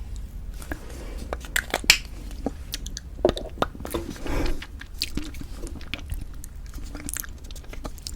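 Close-up mouth sounds of lipstick being applied: irregular short clicks and smacks of the lips, with no speech.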